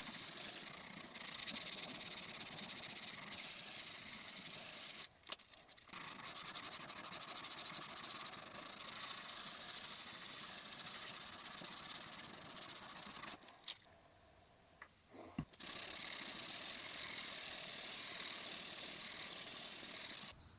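Sandpaper being rubbed by hand over the steel of a chisel: a faint, steady scratchy hiss that breaks off twice for a moment.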